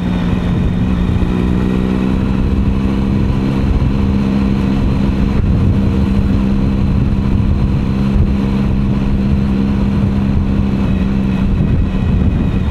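Motorcycle engine running at a steady cruise, one even note that holds throughout, with wind and road rumble underneath.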